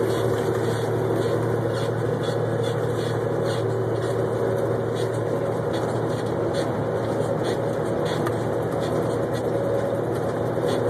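Steady drone of an 18-wheeler's diesel engine with tyre and wind noise, heard from inside the cab while cruising at highway speed.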